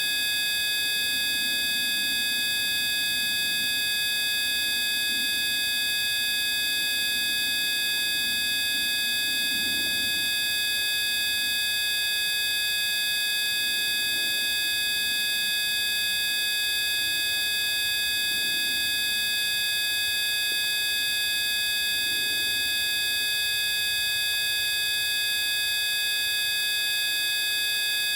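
Several steady high-pitched tones sounding together without change, like an electronic whine, over a faint low murmur.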